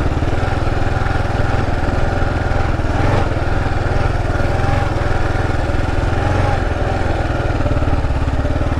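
Kawasaki KLR 650's single-cylinder engine running steadily as the motorcycle rides along a dirt trail, with a brief knock about three seconds in.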